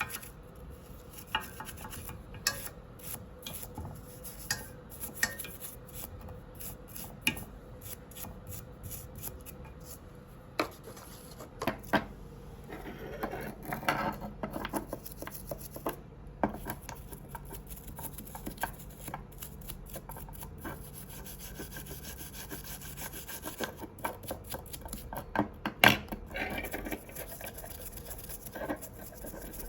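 Hand scrubbing and rubbing on a brass samovar during cleaning, an uneven run of scraping strokes broken by sharp taps and clicks, with the sharpest knock near the end.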